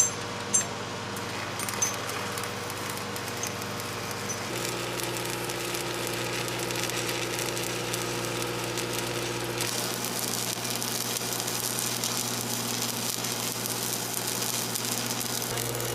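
Steady hum of a running engine with the crackling hiss of arc welding, the crackle growing stronger about ten seconds in.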